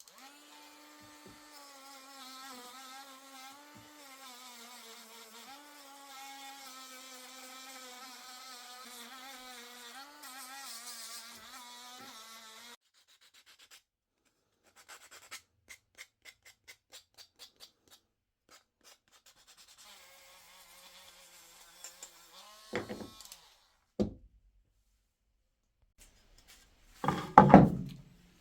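CNC router spindle running at high speed, a steady whine whose pitch wavers slightly as it cuts into wood; it stops abruptly about thirteen seconds in. Then come a string of light ticks, a fainter whine, and a few loud knocks and a short scraping rub near the end.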